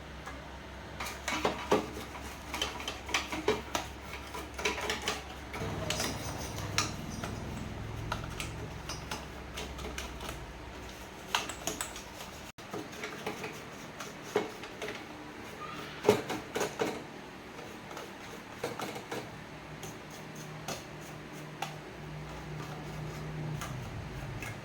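Tools and small hard parts clinking and clattering as they are handled, in irregular clicks and knocks over a low hum that cuts off about halfway through.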